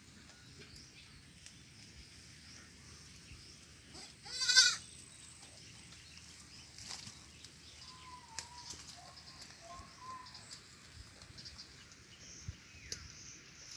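A goat kid bleats once, a single high, quavering cry lasting about half a second, a little over four seconds in.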